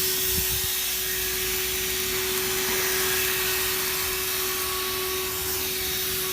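HOTOR corded 12-volt handheld car vacuum running steadily with its upholstery brush attachment fitted: a steady, even-pitched motor whine over the hiss of rushing air as it vacuums upholstery.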